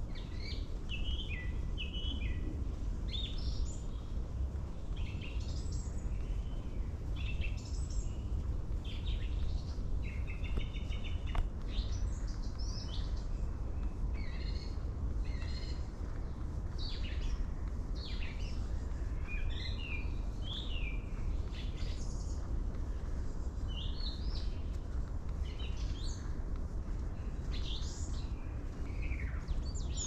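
Several songbirds singing and calling, short high chirps and trills one after another, over a steady low rumble.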